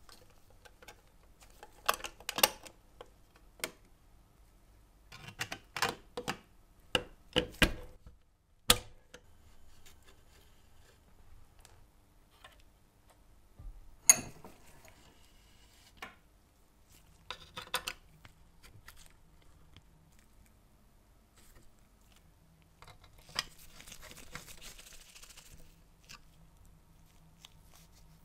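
Sheet-metal and brass parts of a Bing live-steam toy locomotive being handled and fitted together by hand: clusters of light metal clicks and taps, one sharp click about halfway through, and a short scraping rub near the end.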